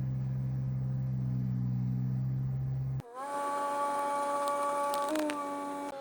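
Tree-trimming crew's lift machine running: a steady low engine drone, which cuts off abruptly about halfway and gives way to a steady higher whine of several tones that shift slightly in pitch now and then.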